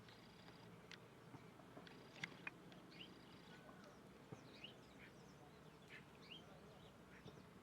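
Faint songbirds calling: scattered short chirps and quick upward-sweeping notes from several birds, over a steady low background hum.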